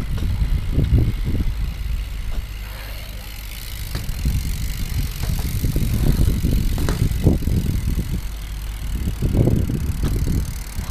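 BMX bike tyres rolling over concrete skate-park ramps, a fluctuating low rumble mixed with wind buffeting the microphone, with a few sharp knocks from the bike.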